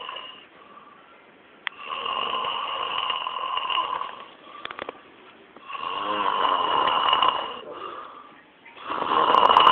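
A man snoring in deep sleep: three long snores of about two seconds each, roughly three to four seconds apart, with quieter breathing between them.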